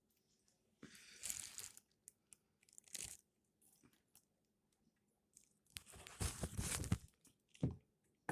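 Crinkling, rustling and tearing of cosmetic packaging being handled, in several short bursts, the longest about a second in and another from about six seconds in.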